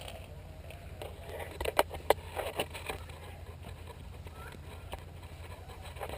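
A few sharp clicks or snaps, about four of them close together around two seconds in, over a steady low rumble.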